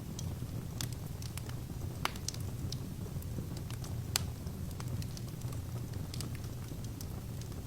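Wood fire crackling in a fireplace: a steady low rumble of burning logs with scattered sharp pops, two louder pops about two and four seconds in.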